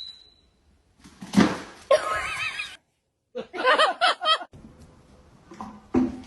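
An animal calling twice with a quavering, wavering pitch, the second call louder.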